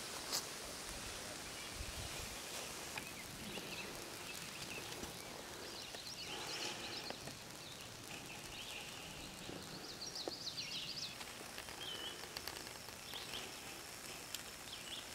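Faint outdoor ambience: a steady hiss with scattered small birds chirping, in little clusters about six seconds in and again about ten seconds in.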